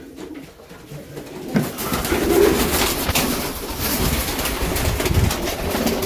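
Serbian Highflyer pigeons cooing in a cage, with a dense rustling, crackling noise from about one and a half seconds in.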